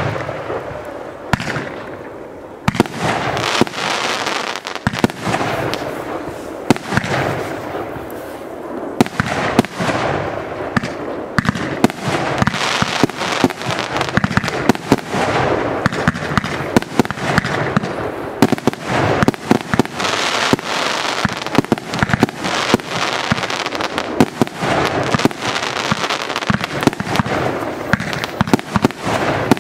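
Aerial fireworks going off in quick succession: sharp bangs of bursting shells, several a second from about ten seconds in, over a continuous crackle of burning stars.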